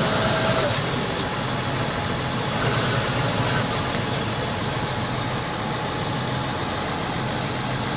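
Large farm tractors' diesel engines running steadily, with no revving or change in pitch.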